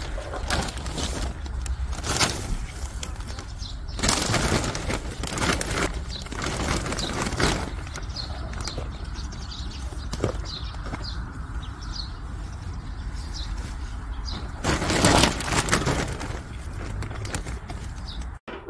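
Plastic feed sack rustling and crinkling in bursts as harvested radishes are loaded into it by hand, with a few faint bird chirps.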